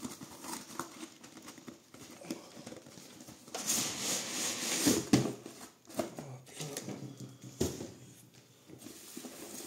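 A cardboard shoebox sliding out of a cardboard shipping carton, a long scraping rustle about three and a half seconds in that ends in a sharp knock. It is followed by a few lighter knocks and a low thump as the box is handled and set down.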